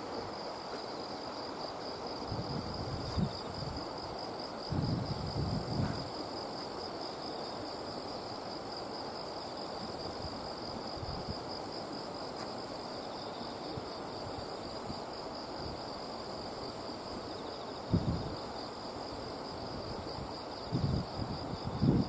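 Insects shrilling in a steady high-pitched chorus, two fine pulsing tones held without a break over a soft background hiss. A few brief low rumbles come and go, the strongest about eighteen seconds in.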